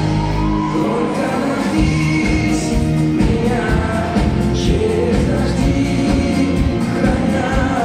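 Male singer performing a pop-rock song live with a band, heard from the audience seats of a concert hall.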